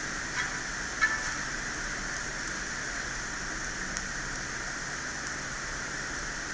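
Steady hiss at the workbench, with a few faint light clicks of small tools, the clearest about a second in.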